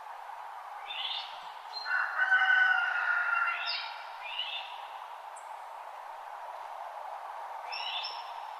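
Wild songbirds calling at dawn: a few quick sweeping calls, then a louder run of several overlapping calls about two to four seconds in, and another brief call near the end, over a steady background hiss.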